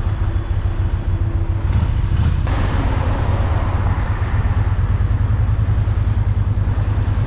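Motorcycle engine running as the bike pulls away from a stop, with wind noise on the microphone building from about two and a half seconds in.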